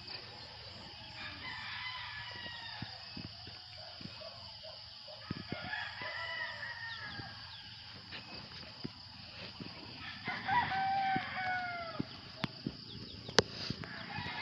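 Roosters crowing repeatedly, in about three bouts, the loudest a little past the middle, with chickens clucking. A sharp click near the end.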